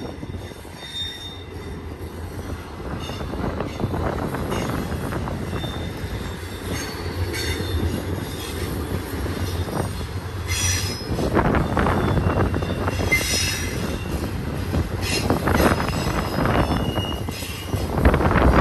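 Long BNSF intermodal train of container cars rolling past on a curve: a steady rumble of wheels on rail, with short high-pitched wheel squeals that come and go from the flanges rubbing the curved rail. It grows louder about halfway through and again near the end.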